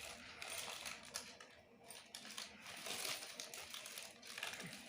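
Faint crinkling and small irregular clicks of takeaway food packaging being handled.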